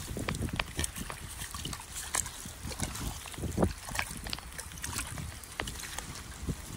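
Rainwater running out of a drain pipe into a puddle, trickling and splashing, with many small irregular splashes and taps throughout.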